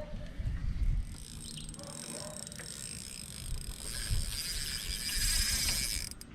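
Fishing reel being cranked to bring in a hooked fish: a steady mechanical whirring that grows louder about four seconds in.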